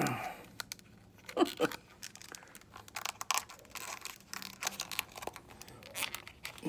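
A pack of small gooseneck model lights being torn open by hand: an irregular string of crinkling, tearing and clicking packaging sounds.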